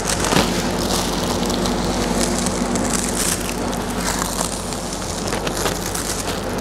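Paper wrapping crinkling and rustling in scattered bursts as it is peeled off a chilled chocolate biscuit log, over a steady background hum.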